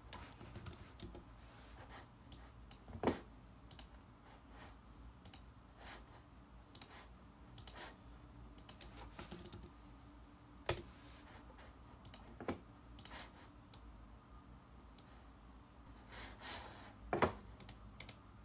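Computer mouse clicks and keyboard keystrokes, sparse and irregular, with a few louder clicks spread through.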